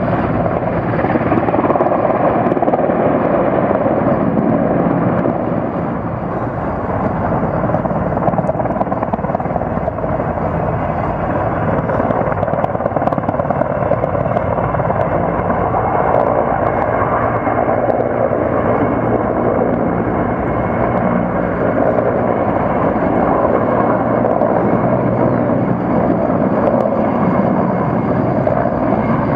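Sikorsky S-64 Skycrane heavy-lift helicopter, its twin turbine engines and six-bladed main rotor running steadily and loud as it hovers low to draw water through its snorkel hose and then flies on.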